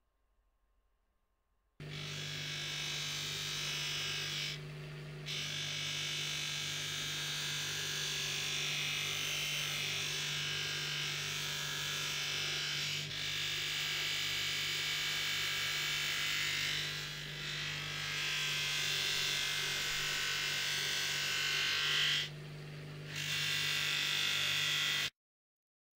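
Small electric rotary tool running steadily, with a constant motor hum under a dense abrasive hiss as it sands and polishes the brass part of a pocket knife. The hiss drops briefly three times. The sound starts suddenly about two seconds in and cuts off sharply near the end.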